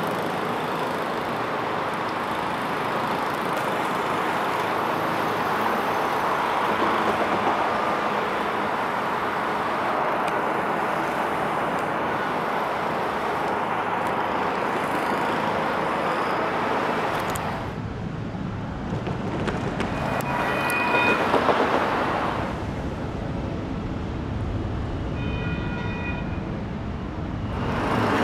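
Road traffic passing a street crossing, a steady rush of tyres and engines that thins out about two-thirds of the way through. Two brief clusters of short high-pitched tones follow in the last third.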